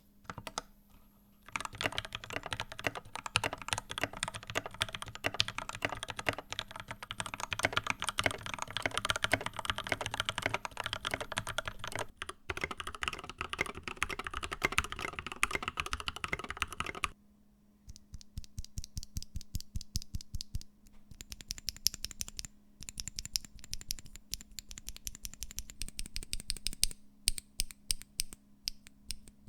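Mechanical keyboard with Gateron Milky Pro Yellow linear switches being typed on: fast, continuous typing with a brief break midway. After a pause of about a second, slower keystrokes follow at a steadier, more spaced-out pace.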